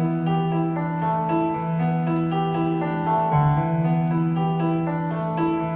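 Piano playing a slow instrumental passage of a ballad, melody notes moving over a steady held bass note, with no singing.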